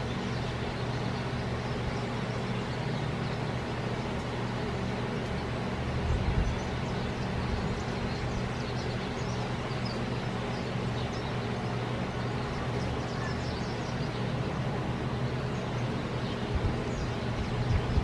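A steady low hum with background rumble, with faint short chirps of house sparrows at the feeder now and then. Two brief louder low thumps stand out, about six seconds in and again at the end.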